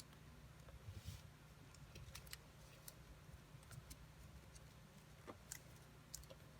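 Near silence with faint, scattered ticks and rustles of paper being folded and creased by hand, over a low steady hum.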